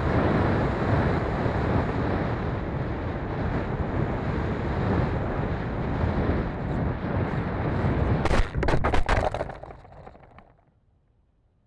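Rushing air roaring over the microphone of a camera mounted on a Habu 50 mm ducted-fan RC jet on its landing approach. About eight seconds in, a quick run of knocks and scrapes as the jet hits the ground hard and skids, then the noise dies away.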